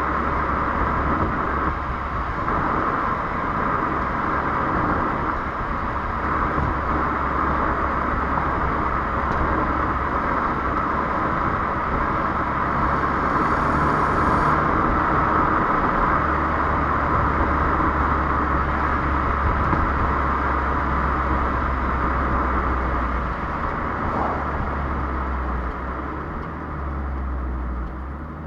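Renault Clio 1.3 TCe 130's turbocharged four-cylinder petrol engine running steadily, with a low rumble under an even rushing noise; it eases off a little near the end.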